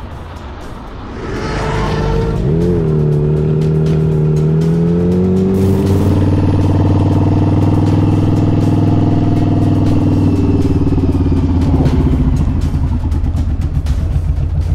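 Motorcycle engine running steadily at road speed. Its pitch dips and picks up again about two and a half seconds in and then climbs slowly, and about six seconds in a lower, steady engine note takes over.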